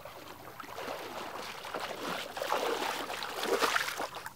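Water splashing and sloshing as someone wades through shallow water, irregular and growing louder after about two seconds.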